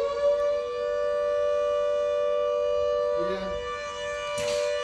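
Fire station siren sounding one steady, high tone, its pitch still climbing slightly in the first half-second before holding level. A voice is heard faintly about three seconds in, and there is a short rush of noise near the end.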